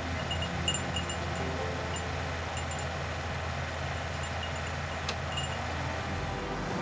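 Skid steer engine running steadily; its low drone shifts lower about six seconds in.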